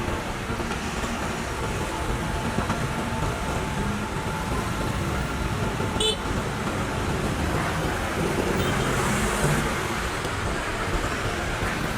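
Diesel engine of a CAT 320 hydraulic excavator running steadily, with a short sharp click about six seconds in.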